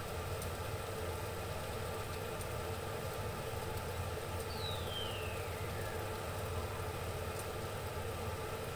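Steady low hum and hiss from the stove while covered pots of mussels steam, with a faint falling whistle about halfway through.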